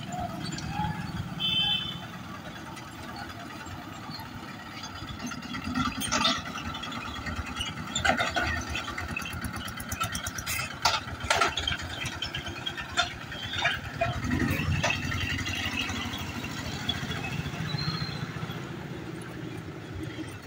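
Mixed road traffic crossing a railway level crossing: motorcycle and small truck engines running, with sharp clatters and rattles now and then as vehicles bump over the rails. A short high beep sounds about a second and a half in, and voices are heard in the background.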